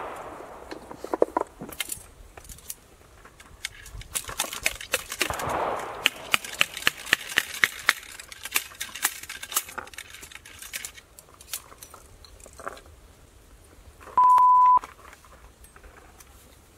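Original Habsburg flintlock rifle being loaded: metal clicks and knocks from the ramrod and lock, with a quick run of rapid clicks as the rod drives the ball down the barrel. About three-quarters of the way through, a loud short steady beep.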